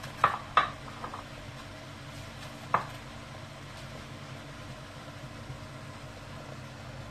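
A few light kitchen clicks in the first second and one sharper knock about three seconds in, over a steady low mechanical hum.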